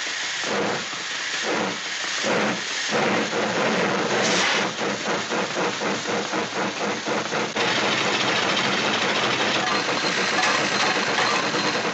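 Rhythmic chuffing like a steam locomotive pulling away, produced as a cartoon sound effect. It starts as slow puffs about two a second, speeds up after about three seconds, and near the middle merges into a steady hissing rush.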